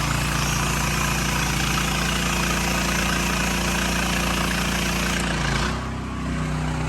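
Gas-engine pressure washer running steadily under the hiss of its spray. About five and a half seconds in, the spray hiss stops and the engine note shifts.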